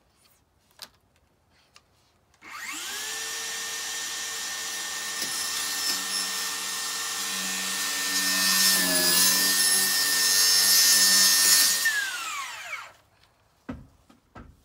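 A handheld cordless power tool's motor spins up and runs steadily for about nine seconds, dipping briefly in pitch as it takes load and getting louder near the end, then winds down with a falling whine.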